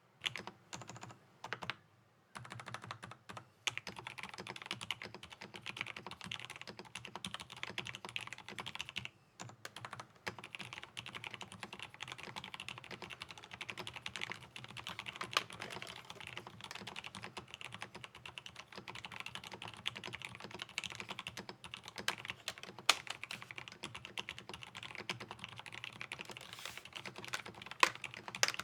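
Typing on a TEX Shura mechanical keyboard with Kailh Midnight Pro silent tactile switches, ABS double-shot keycaps and a plastic case: a few scattered keystrokes, then a steady, fast run of key presses from about two seconds in, with a brief pause about nine seconds in and a few louder key hits standing out.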